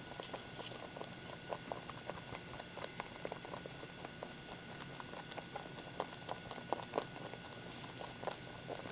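Three rabbits eating together from a ceramic bowl: a fast, irregular stream of small crunching clicks as they chew.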